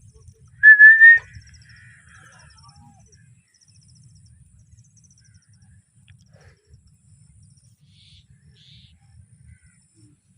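A parrot gives one loud, slightly rising whistled call about a second in, then faint chirps and high twittering. Two brief high chirps come near the end.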